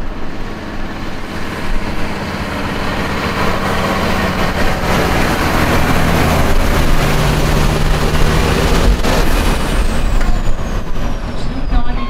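Semi tractor's diesel engine running as the truck passes close, growing louder toward the middle. About nine seconds in there is a short air hiss, followed by a thin high whine that falls slowly in pitch.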